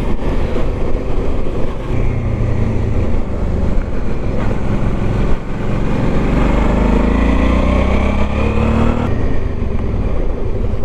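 Motorcycle engine running on the move; a little past halfway the note drops briefly, then rises steadily for several seconds as the bike accelerates.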